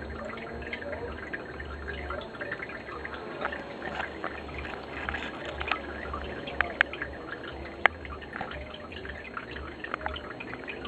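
Aquarium water trickling and dripping, with many small plinks, a few sharper clicks about two-thirds of the way through, and a low hum underneath.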